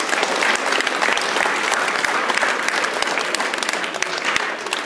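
An audience applauding: many hands clapping densely, easing off slightly near the end.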